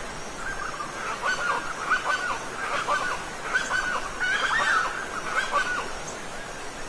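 Steady rush of a waterfall under a run of short, repeated bird calls, which start about half a second in, crowd together in the middle and stop about a second before the end.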